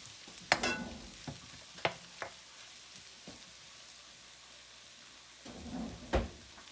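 Goat offal frying with a steady faint sizzle in a metal pan while a spoon stirs it, clinking and scraping against the pan several times; the loudest knock comes near the end.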